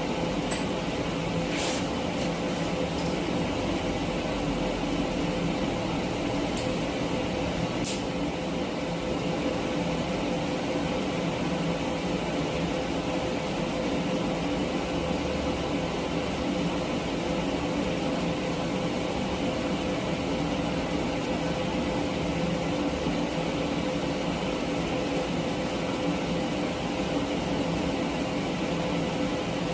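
TIG welder running steadily while steel brackets are welded: a constant machine hum with a steady tone and a hiss. A few sharp clicks come within the first eight seconds.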